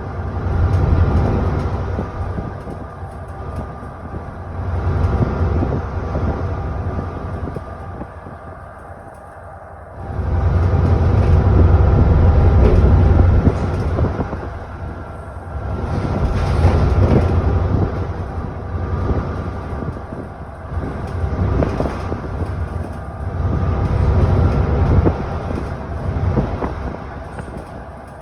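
ADL Enviro400 double-decker bus heard from on board: the diesel engine and driveline rise and fall in repeated surges as the bus pulls away and eases off. The strongest, longest pull comes about ten seconds in, with shorter surges before and after.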